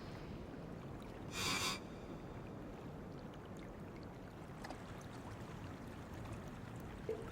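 Water sloshing and lapping against a small craft adrift at sea, with a brief splash about a second and a half in.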